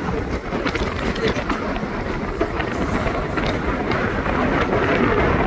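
Strong mountain wind buffeting the microphone: a steady, loud, rumbling rush with gusty fluctuations.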